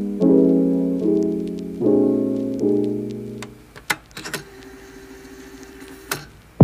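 Soft lo-fi piano background music playing its chords for about the first half, then stopping; after it, a few light clicks and taps of a phone being handled and pressed into a clear plastic case, with one sharper click near the end.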